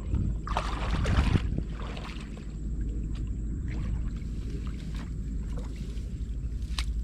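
Water splashing and sloshing, with a louder splash about a second in, over a steady low rumble.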